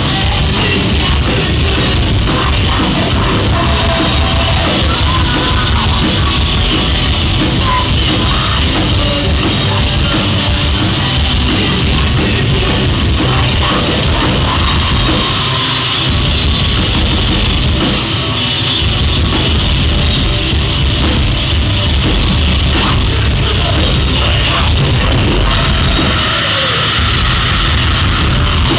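Loud rock music, heavy-metal style, playing continuously with drums and distorted instruments.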